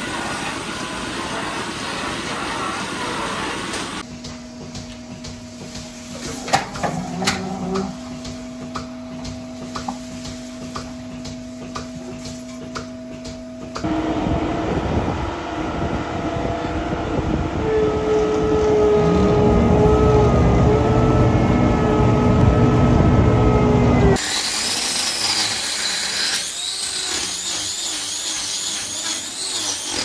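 A run of dairy-farm machine sounds. First a milking parlour's steady machinery noise, then a steady machine hum with scattered clicks. Then the loudest part, a self-propelled Strautmann Verti-Mix feed mixer wagon's engine running and climbing in pitch, and near the end hoof-trimming tools working on a cow's hoof.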